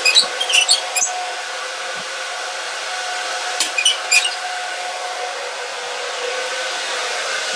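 A workshop tool running with a steady whirring hiss and a faint whine, broken twice, right at the start and about three and a half seconds in, by clusters of short, sharp, high squeaks or scrapes.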